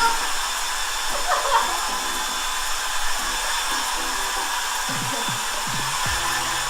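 Hand-held hair dryer blowing steadily. A few falling pitched swoops come in about five seconds in.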